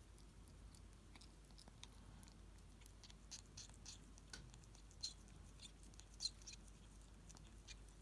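A ferret lapping and chewing cream and Christmas pudding: faint, irregular wet smacking clicks, busiest in the middle, with one sharper click a little after six seconds.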